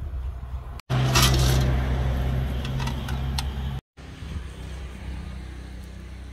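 A steady low mechanical hum with some noise over it, cut off abruptly twice by brief drops to silence, with a few light clicks shortly before the second cut.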